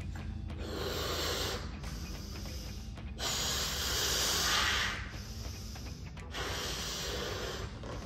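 A person blowing up a rubber balloon by mouth: a run of about five forceful, hissing breaths, the longest and loudest one about halfway through.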